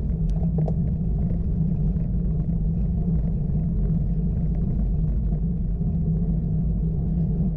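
Steady low rumble of wind and road noise picked up by a camera on a road bike while riding.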